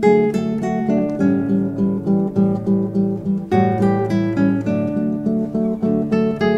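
Two classical guitars playing a duet: a steady pulse of repeated plucked notes, about four a second, under a melody line.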